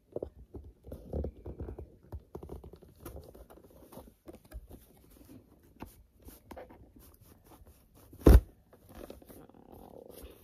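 Cardboard toy box being handled and turned over, with scattered light taps, scrapes and rustles, and one sharp, loud thump about eight seconds in.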